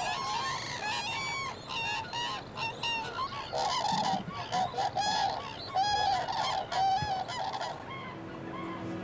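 A flock of common cranes calling, many overlapping calls from birds with heads thrown back in courtship display; the calls thin out near the end.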